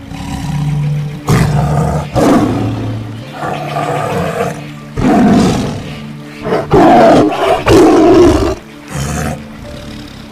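Tiger growling and roaring in a string of loud, rough bursts about a second apart, with background music.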